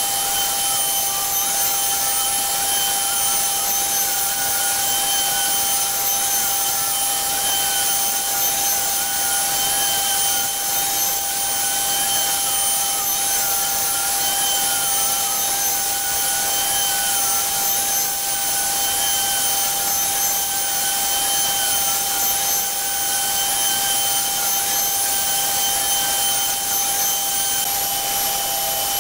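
CNC Shark router spindle running with a steady high whine while its bit carves into a wood panel, with a thinner tone that wavers up and down as the machine moves the bit.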